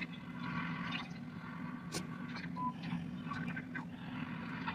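Clicks and rattles of metal nail tools in a clear plastic storage box being handled, over a steady low hum, with a sharp click about two seconds in and a short beep a little past halfway.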